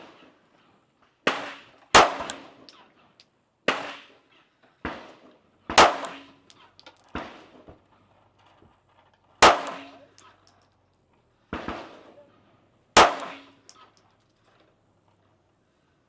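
Gunshots, about nine at uneven intervals, each with a short echoing tail. Four are sharper and louder than the rest, which fits 9mm pistol shots fired close by; the fainter shots come from farther off.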